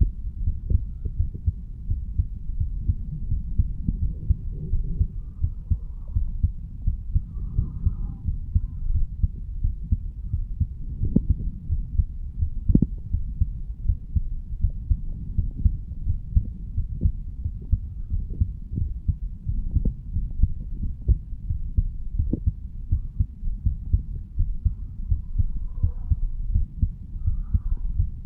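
A man's heartbeat recorded over the mitral valve area of his chest: a steady run of low-pitched beats.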